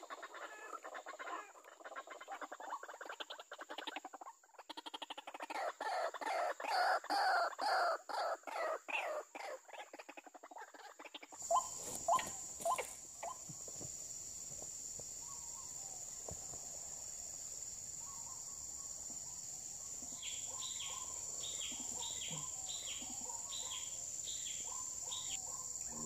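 White-breasted waterhen calling: a long run of rhythmic calls, about three a second, growing louder and then stopping abruptly about eleven seconds in. After that a steady high insect drone with a few knocks, and near the end a row of short high chirps about two a second.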